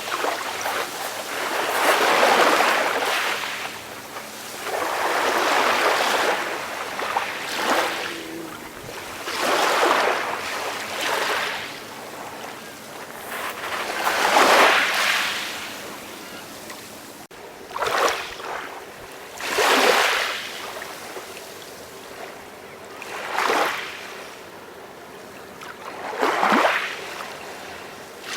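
Calm sea waves washing in: a hiss that swells up and fades away again roughly every two to three seconds.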